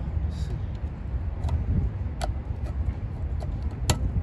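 A few sharp metallic clicks and ticks as pliers work on the rear drum-brake shoes and their springs, the loudest near the end and one with a short ring. Under them runs a steady low rumble.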